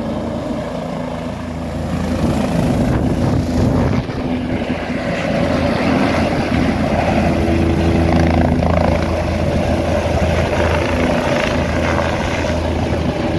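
Helicopter running on a helipad, its rotor and turbine engine a loud steady drone, as it lifts off.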